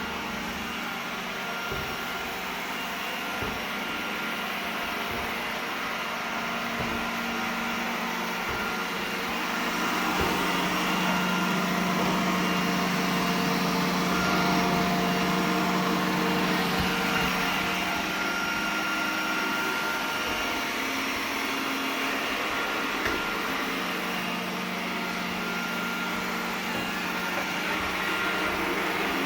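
iRobot Roomba 980 robot vacuum running, its suction motor and brushes giving a steady whirring hum that grows louder for several seconds in the middle as it comes nearer.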